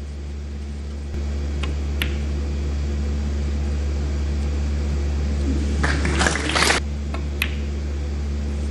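Quiet snooker-arena ambience under a loud, steady low hum, with a few sharp clicks of snooker balls and a brief rustling burst about six seconds in.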